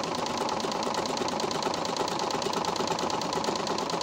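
Pfaff Quilt Expression 4.2 computerized sewing machine running steadily at speed, stitching a test seam after a thread-tension repair, with a fast, even needle rhythm.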